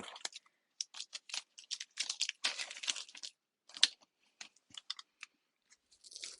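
Paper crinkling and tearing close to the microphone in short, irregular crackles, with a sharper click just before the four-second mark.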